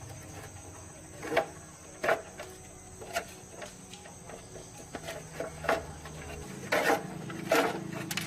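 A handful of sharp, irregular knocks and clicks from hand tools and parts being handled during a motorcycle wheel-bearing repair. Under them runs a steady high insect trill, like crickets.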